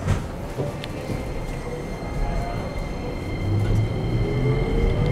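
Keikyu New 1000 series train's Toyo IGBT-VVVF inverter and traction motors pulling away from a stop: a click right at the start, a low rumble that builds, then from about three seconds in a rising electric whine as the train accelerates.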